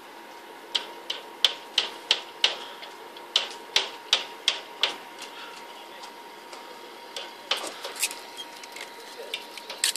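A run of sharp clicks at about three a second, a pause of about a second, a second run, and then scattered clicks after about seven seconds.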